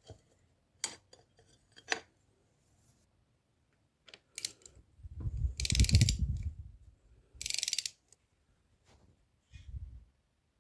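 Mechanical clicks and short ratcheting rattles. The loudest rattle, about five seconds in, has a low rumble under it, and a shorter one follows near eight seconds.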